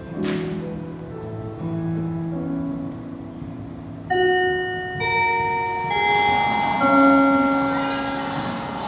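Instrumental music: soft held low notes, then bright bell-like notes come in about four seconds in and the music grows louder.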